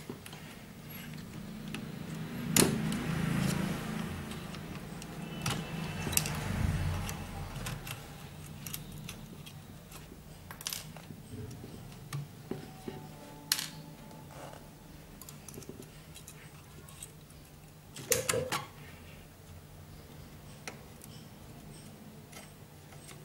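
Handling noise from a TV power-supply circuit board and its wires: rustling and scattered sharp clicks and rattles, over a faint steady low hum.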